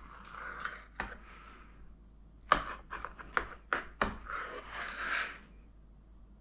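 Knife cutting through a plum torte with a crisp crust: scratchy strokes as the blade goes through the cake, and sharp taps of the blade on a wooden board, one about a second in and a quick run of several around the middle.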